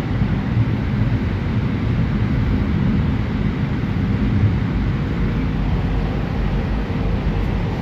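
Elevated train running, heard from inside the passenger car: a steady low rumble of wheels and motors on the track. A faint steady hum joins about five seconds in.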